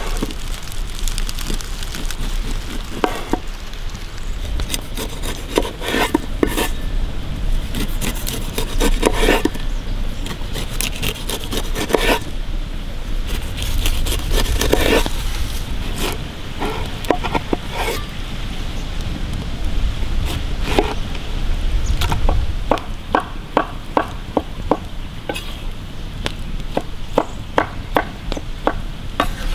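Large chef's knife cutting the tough rind off a whole pineapple, in bursts of rasping, scraping strokes. In the last several seconds, a run of quick knocks as the blade chops pineapple on a wooden board.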